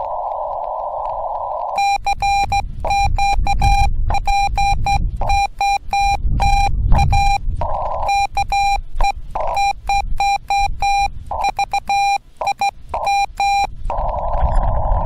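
Yaesu FT-891 transceiver in CW mode. At first there is a hiss of band noise through the narrow CW filter. About two seconds in, a steady Morse code tone starts, keyed by hand in dots and dashes, with a short pause midway. The hiss returns near the end.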